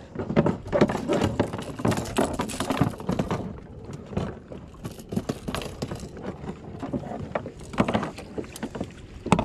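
Water slapping and sloshing against a kayak's hull with irregular knocks, busiest in the first few seconds and again near the end.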